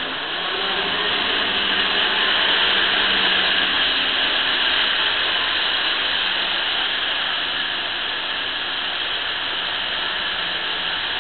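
Model trains running on metal track: a steady whirring rattle of motors and wheels, with a faint low hum underneath.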